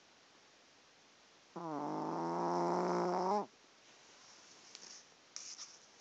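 A pet snoring: one long snore with a steady low pitch, lasting about two seconds and starting about a second and a half in. A few faint small clicks follow near the end.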